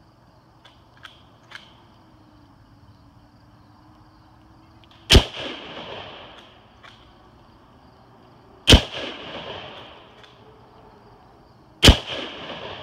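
Three shots from a Ruger Gunsite Scout bolt-action rifle in .308, heard from beside the target downrange, spaced about three and a half and three seconds apart as the bolt is worked between them. Each sharp report is followed by an echo lasting about a second.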